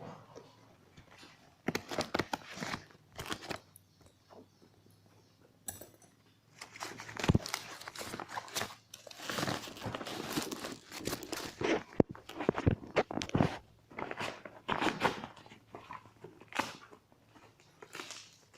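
Plastic packaging being crinkled and torn by hand, with irregular sharp clicks and knocks of handling.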